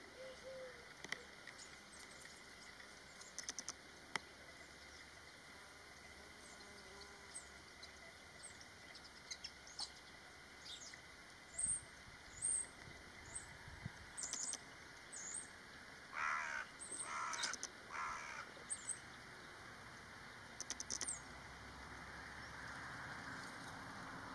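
Birds calling over a faint, steady outdoor hiss: scattered short, high chirps throughout, and three harsher, louder calls in quick succession a little past the middle.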